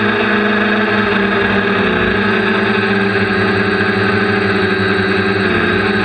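Quadcopter's electric motors and propellers whining steadily, heard close up from on board. The pitch wavers slightly about two seconds in and again near the end.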